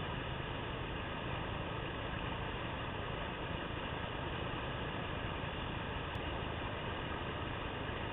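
Whitewater of a large river rapid rushing steadily: an even, unbroken noise with no pauses.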